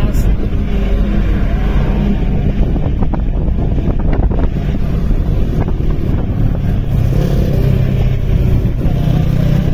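Steady engine hum and road noise of a vehicle driving along a highway, with wind rumbling on the microphone.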